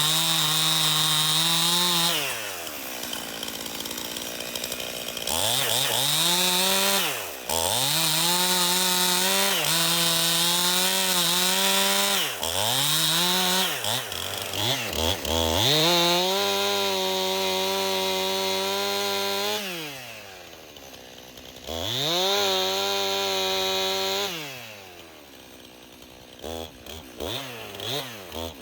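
Stihl MS291 two-stroke chainsaw with a Forester bar and chain, cutting a fallen tree. It runs at full throttle for a few seconds at a time, and its pitch falls to idle each time the throttle is released. Between cuts it idles briefly, with a few quick revs near the end.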